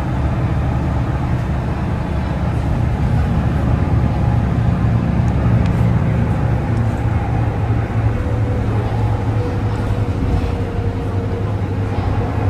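Inside a moving city bus: engine and road noise as a steady low drone that swells for a few seconds in the middle, with a faint whine coming in during the second half.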